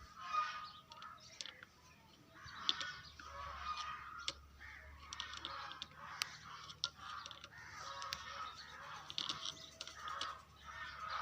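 Faint bird calls, harsh and repeated roughly once a second, with a few sharp clicks between them.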